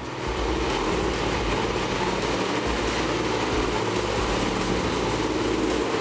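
Tracked horizontal wood grinder running under load: a steady, dense mechanical noise of its engine and the grinding of logs on the infeed conveyor.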